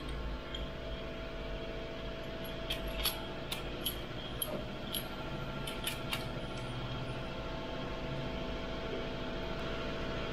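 Light metallic clicks and taps of metal engine parts and hand tools being handled, scattered irregularly over a few seconds, over a steady background hum.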